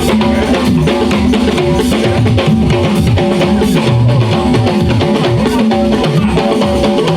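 Live church praise band playing without vocals: electric guitar over a busy bass guitar line and drum kit, keeping a steady beat.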